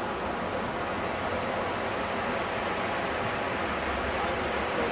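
Steady rushing hiss of water falling down the walls of the 9/11 Memorial reflecting pool.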